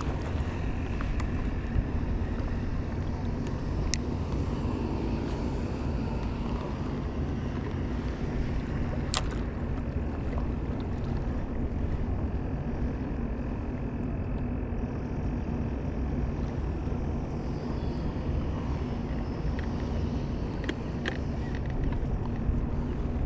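Steady low rumble of a boat engine running, mixed with wind noise, with two sharp clicks about four and nine seconds in.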